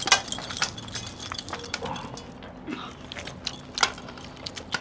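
Messy eating by hand: chicken pieces torn apart in curry on steel plates, with scattered short clicks and metallic clinks, as from metal rings and bracelets knocking on the plates.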